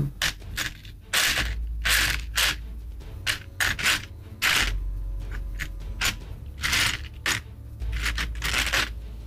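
Plastic Lego Technic pieces being handled and fitted together: irregular clicks and taps with short scrapes of plastic against plastic.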